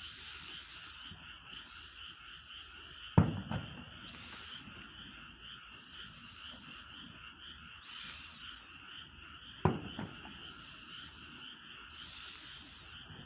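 A steady chorus of frogs calling in a fast pulsing trill, with two distant firework bursts booming, one about three seconds in and one near ten seconds.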